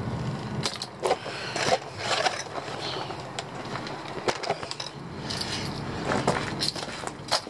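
Rattling and clattering of an RC car's chassis and knobby tyres over gravel and onto concrete, with many sharp knocks; a low motor hum runs under the start.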